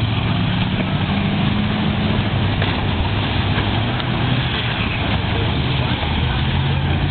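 Race car engines running on a speedway track: a steady, loud engine drone whose pitch drifts up and down, under a constant noisy wash. Indistinct voices run beneath it.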